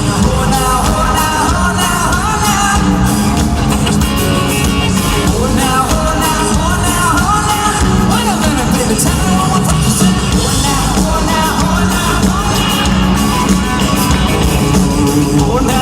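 Loud live band music with singing, recorded from among the concert audience.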